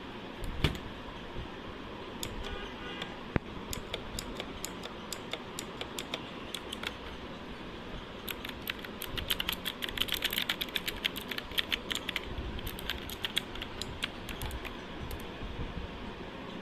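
Keys being typed on an AULA F3068 mechanical keyboard. Scattered keystrokes come first, then a quick run of typing through the middle, which slows again towards the end.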